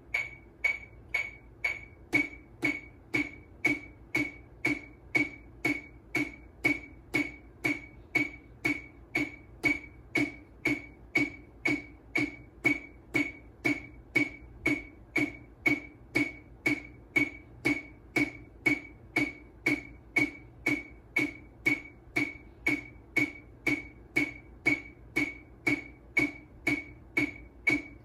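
A metronome clicking about twice a second. About two seconds in, wooden drumsticks join in time, playing low tap strokes on a drum head: the 16-on-a-hand exercise at 60 BPM, sixteen strokes with one hand, then sixteen with the other.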